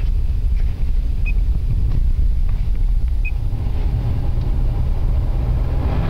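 A car driving through deep snow: a steady low rumble of engine and tyres.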